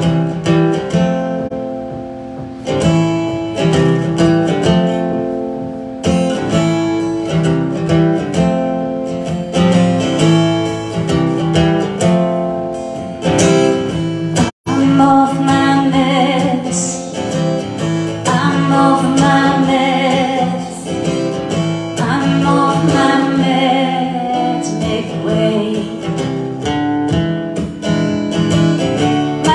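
Live acoustic guitar playing, strummed chords in a steady rhythm, with a woman singing over it in the second half. The sound cuts out for an instant about halfway through.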